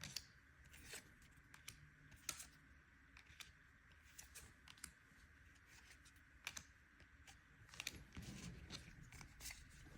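Faint, scattered clicks and taps of trading cards being handled and flicked through, about one or two a second.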